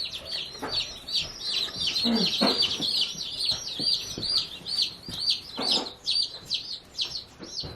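A brooder full of baby chicks peeping: a continuous chorus of short, high chirps, many a second and overlapping.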